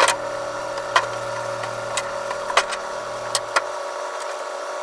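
Dishwashing clatter in a stainless-steel sink: sharp knocks of a wooden cutting board, chopsticks and a knife against the steel, over a steady hiss and a low hum that stops about three and a half seconds in.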